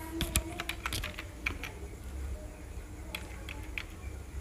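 Keyboard typing: a quick run of about nine light key clicks in the first second and a half, a pause, then four more a little after three seconds in.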